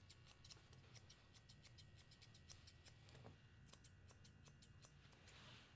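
Faint, quick snips of grooming scissors trimming a small dog's leg hair, coming in runs with short pauses between.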